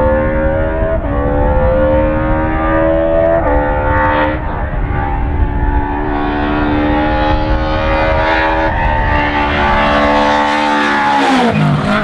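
Rally car engine at high revs under hard acceleration, its pitch jumping at a few gear changes, then falling steeply near the end as the car passes close by.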